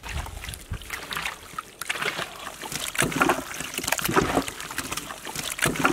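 Raw chicken pieces in an oily lemon marinade being mixed by gloved hands in a large metal pot: irregular wet squelching and slapping as the meat is turned over.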